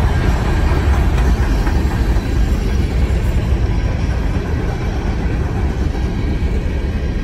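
Covered hopper cars of a manifest freight train rolling past: a steady rumble of steel wheels on the rails.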